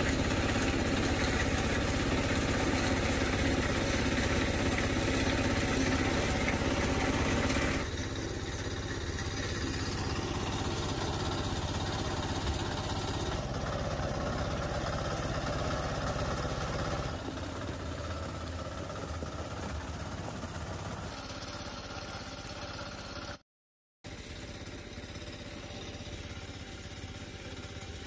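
Small gasoline engine running steadily, the kind that drives a site concrete mixer. It steps down in level twice and cuts out for a moment near the end.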